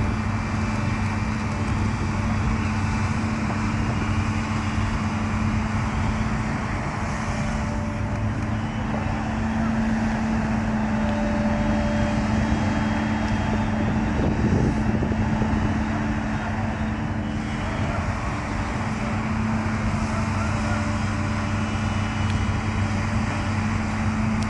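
JCB backhoe loader's diesel engine running steadily, a continuous low hum with little change in pitch.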